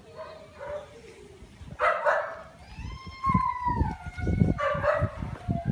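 Young dog vocalizing: a short bark about two seconds in, then a long whine that rises and falls, and a shorter whine near the end.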